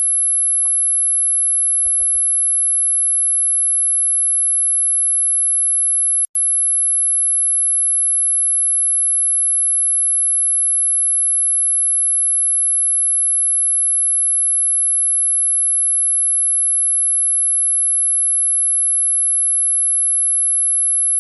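Dog whistle sound effect: one steady, very high-pitched pure tone at about 11,200 Hz, broken by a brief dropout about six seconds in.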